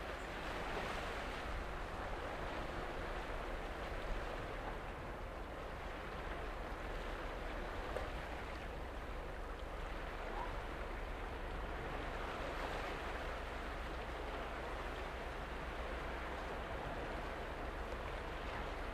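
Seawater washing against the shore in slow surges every few seconds, over a steady low rumble.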